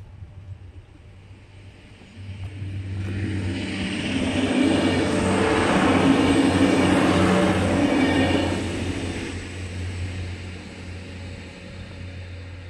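A red two-car diesel multiple unit passing over a level crossing: its engine and wheel noise swell about two seconds in, are loudest around six to eight seconds, then fade away, leaving a low engine hum.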